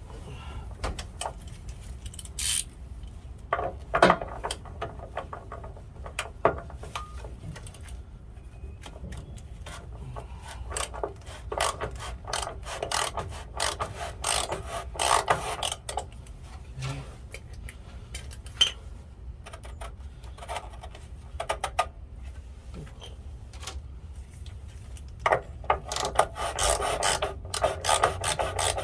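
Ratchet wrench with a 27 mm socket working the DEF filter cap under a Volvo D13 semi, clicking in bursts with scraping and rubbing of metal and plastic parts. The clicking is densest near the end.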